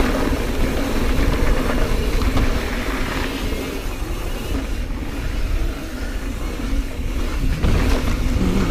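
Mountain bike running fast down dirt singletrack: wind rumbling on the camera microphone and knobby tyres rolling over dirt, with a steady buzz from the rear freehub as the bike coasts.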